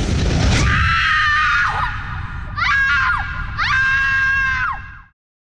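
A high-pitched voice crying out in three long wails, each sliding down in pitch as it ends, over a fading loud sound mix; the sound cuts off suddenly about five seconds in.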